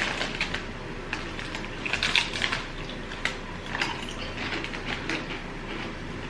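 A person crunching and chewing crinkle-cut potato crisps, in irregular bunches of crackly crunches.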